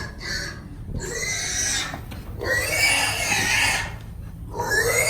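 Young feeder pig squealing in several long, loud screams, each about a second, with short pauses between them. These are the alarm squeals of a pig being caught and held.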